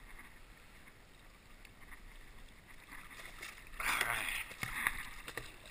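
Water splashing for about a second, about four seconds in, as the yellow bag holding a freshly landed halibut goes over the side of a kayak into the water, after a few seconds of quiet lapping.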